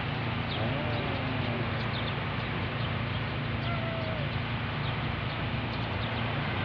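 Steady outdoor background noise with a low hum, and faint short bird chirps scattered through it.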